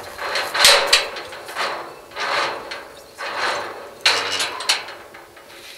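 Footsteps, about one step a second, each a short scuffing noise.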